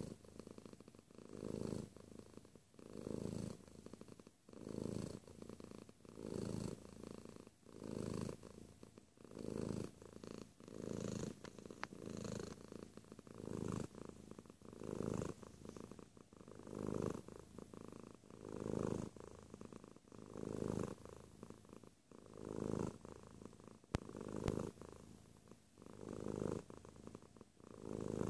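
Grey tabby cat purring right at the microphone, the purr swelling and easing in an even rhythm about every second and a half to two seconds as the cat breathes in and out.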